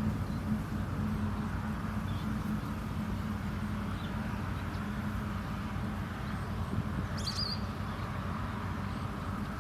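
A steady low hum over constant background noise, with a few faint, brief high chirps from small birds, the clearest about seven seconds in.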